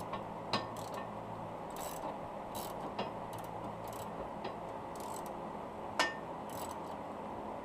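Hand ratchet wrench clicking in short, irregular runs as the coilover's upper mounting bolts are run in, with one sharper metal click about six seconds in.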